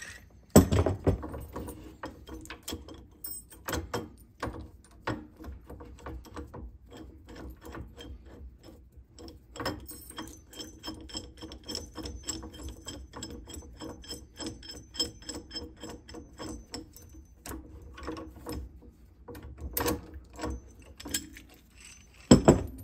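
Ratchet wrench clicking in a quick, even run as a strut spring compressor's threaded rods are unscrewed from the coil spring, with a louder metal knock near the start and another near the end.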